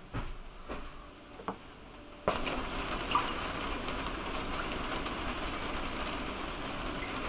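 A few light clicks as crumbly biscuit pieces are set on a plate. Then, starting suddenly a little over two seconds in, a steady stream of milk is poured from a carton into a glass tumbler.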